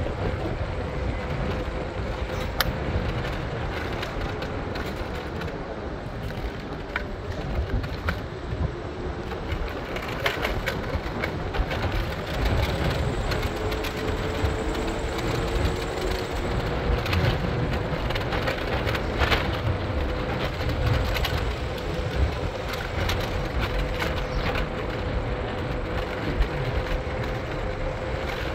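A vehicle in motion: a steady low rumble of ride noise with scattered clicks and rattles. A faint whine fades out early, comes back about halfway through, and slowly rises in pitch.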